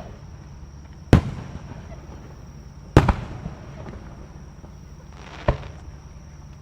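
Aerial firework shells bursting, four sharp booms a second or two apart, each trailing off in a short rumbling echo; the last, about five and a half seconds in, is fainter.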